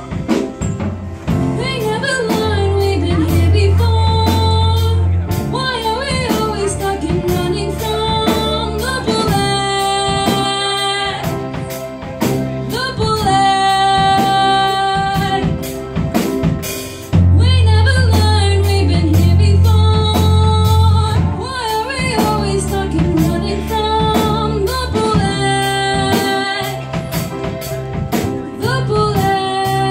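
Live music: a woman and a young man singing a duet with microphones, backed by piano, electric keyboard and a drum kit. Long held sung notes over deep bass notes and a steady drum beat.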